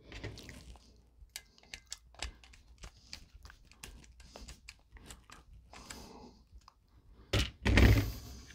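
Screwdriver turning a ground screw in a steel electrical box: a scatter of small metallic clicks and scrapes as the screw is tightened down on the looped copper ground wire. Two louder knocks about seven and a half seconds in as the box and tools are handled.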